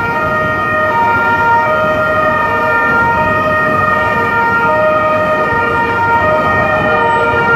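Police vehicle sirens sounding a two-tone call, switching between a high and a low note roughly every second, over steady held tones and street noise.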